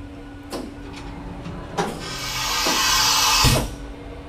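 Fadal CNC machining center responding to a TC,1 carousel command: a couple of clicks, then a hiss that swells for about a second and a half and cuts off suddenly with a thump, over a steady machine hum.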